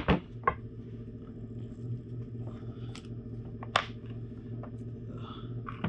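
Small metal parts of a motorcycle front brake master cylinder and its aluminium lever clicking and tapping as they are handled and the lever is taken off its pivot. The clicks are scattered and short, the sharpest about two-thirds of the way through, over a steady low hum.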